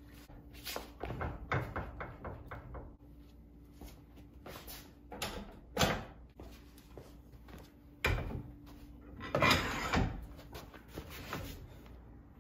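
Clicks and heavier knocks of hand tools working on a Nissan 350Z's 32 mm rear axle nut, with the car held in gear instead of by a parking brake. A quick run of clicks comes in the first few seconds, then scattered louder knocks, with a longer noisy one just before ten seconds in.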